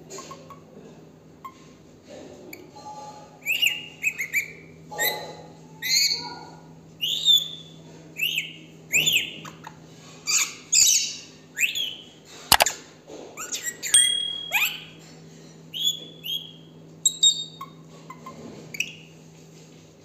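Plum-headed parakeet calling: a run of short, sharp chirps and whistles, about one or two a second, from about three seconds in until near the end. A single sharp click falls midway.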